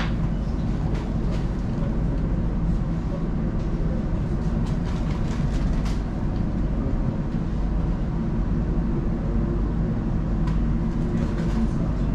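Elizabeth line Class 345 electric train heard from inside the carriage while running: a steady low rumble from wheels and traction with a few faint clicks and rattles.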